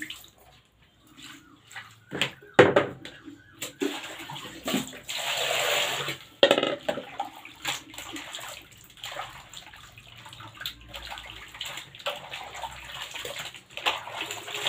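Water sloshing and splashing in a plastic basin as hands rinse freshly cut potato chip slices, in irregular bursts, with a longer steady run of water about five seconds in.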